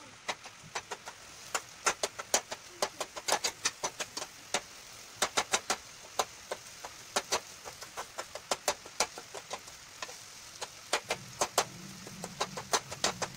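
Metal spoon clinking and scraping against an aluminium pot while stirring and mashing tomatoes and onions: a quick, irregular clatter of sharp taps. A low hum joins near the end.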